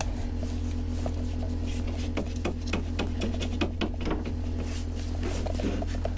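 A wooden stir stick scraping and clicking in a plastic cup as thickened epoxy is mixed by hand, with a busy run of clicks and scrapes in the middle. A steady low hum runs underneath.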